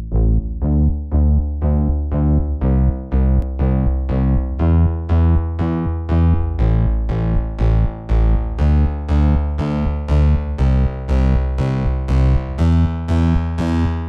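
Background music: repeated short chords, about three a second, over a steady low bass.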